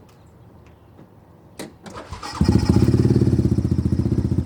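Yamaha Rhino side-by-side's engine starting about two seconds in after a couple of clicks, then running with a fast, even pulsing.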